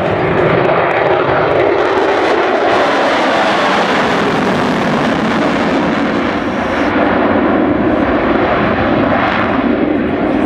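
Loud, continuous jet noise from an F-22 Raptor's twin Pratt & Whitney F119 turbofans during a demonstration pass, growing brighter and harsher for a few seconds in the middle before easing back.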